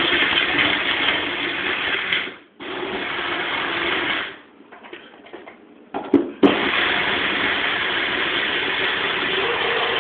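Small personal blender running, blending a thick raw chocolate mousse mix of avocado, dates and cacao. It runs in pulses: a brief stop about two seconds in, a gap of about two seconds near the middle with a few knocks, then a final run of about three and a half seconds.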